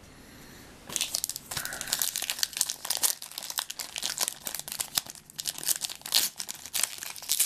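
A shiny foil wrapper of a 2011 Panini Contenders football card pack crinkling and tearing as it is pulled open by hand. A dense, irregular crackle starts about a second in.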